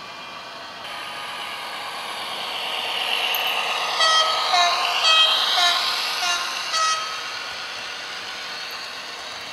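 Sound decoder of an H0-scale Roco TEE RAm diesel railcar model playing through its small loudspeaker: a steady running sound grows louder as the model nears, then about six short horn toots alternating between two pitches.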